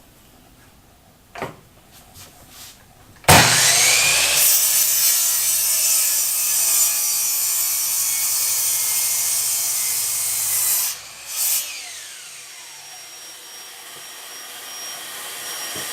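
Electric power saw switched on about three seconds in, spinning up and cutting through a wooden 1x6 board for about seven seconds, then switched off and winding down with a falling whine.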